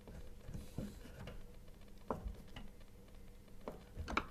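A screwdriver working a screw in a dryer motor's mounting bracket: a few scattered light clicks and taps at irregular intervals over a faint steady hum.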